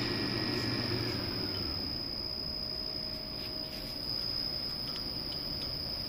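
Steady workshop background noise with a constant high-pitched whine, and a few faint light metallic clicks near the end.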